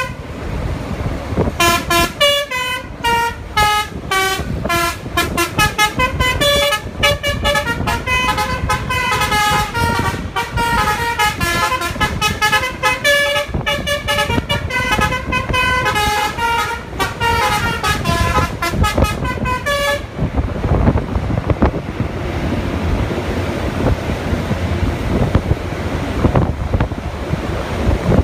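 Bus 'telolet' multi-tone horn playing a fast melody of short honked notes, one tune after another. The notes stop about twenty seconds in, leaving a steady rush of wind noise.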